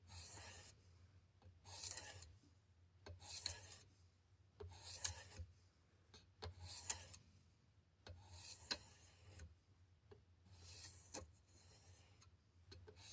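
A knife blade honed with slow, even strokes on a Worksharp Precision Sharpener's ceramic stone: about seven light scraping passes, one every second and a half to two seconds, as the final finishing stage of the edge.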